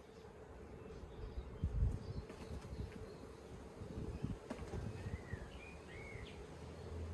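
Honeybees buzzing in a steady hum, with wind rumbling on the microphone. A short, wavering high call is heard in the middle.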